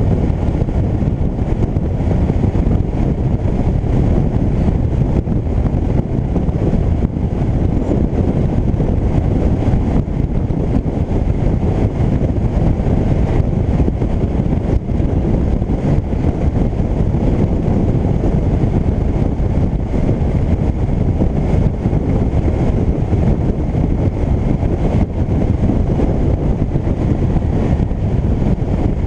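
Steady wind rush buffeting an action camera's microphone, mixed with the running of a Yamaha DragStar Classic's V-twin engine at constant cruising speed.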